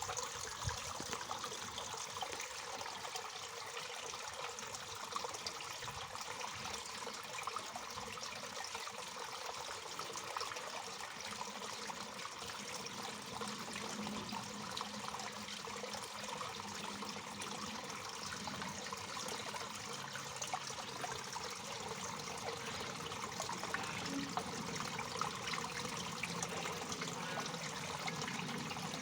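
Waterfall: water falling and splashing steadily, with a fine trickling patter.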